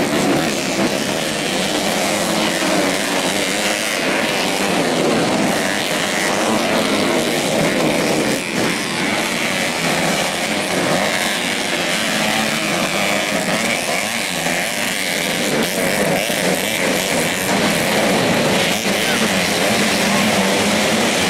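Modified 125 cc four-stroke underbone motorcycles racing on a dirt track, their engines revving hard and rising and falling in pitch as the riders work the throttle, over a crowd's noise.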